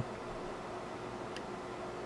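Steady blower hiss from the micro-soldering bench's air equipment, with a faint hum and one small tick about one and a half seconds in.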